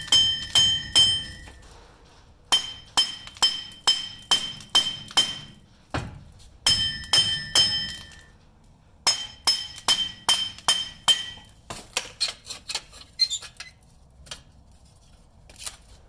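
Steel hammer blows on a Ford Super Duty front wheel hub flange, knocking the hub out of the steering knuckle from alternating sides. The blows come in quick runs of four to seven, about three a second, each with a bright metallic ring, and there are lighter taps near the end.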